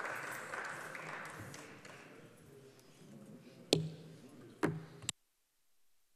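Background noise of the assembly hall fading away, then two sharp microphone-system clicks about a second apart, each followed by a brief hum, after which the broadcast sound cuts off to dead silence.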